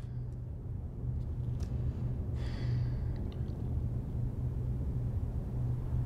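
Low steady rumble that swells a little over the first second, with a brief faint breathy sound about two and a half seconds in.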